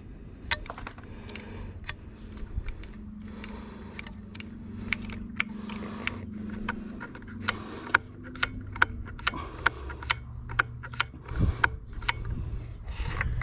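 Irregular sharp clicks and light metallic rattling, roughly one or two a second and busier in the second half, over a low steady hum.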